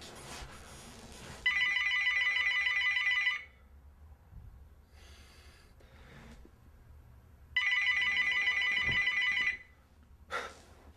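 A telephone ringing twice, each ring a rapidly pulsing tone about two seconds long, the rings about six seconds apart.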